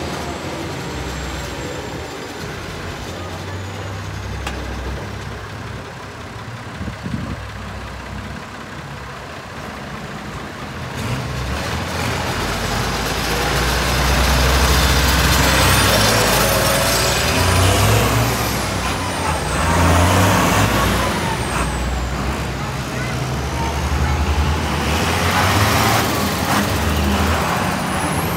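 Diesel farm tractor engines running as tractors drive past close by, the low rumble building from about halfway through and swelling several times as each one passes. A high whine rises and falls a few times while they pass.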